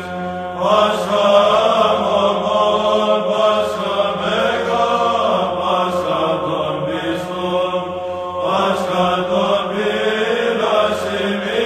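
Byzantine Orthodox chant for Pascha (Easter) sung by voices over a steady held drone note (the ison), the melody line rising and falling in long phrases.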